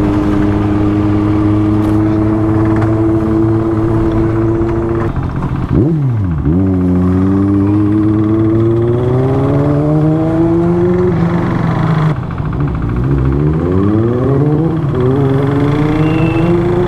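Sport motorcycle engine under way: a steady cruising note for about five seconds, then the pitch dips sharply and climbs again as the bike accelerates. The note falls once more around twelve seconds in and rises again.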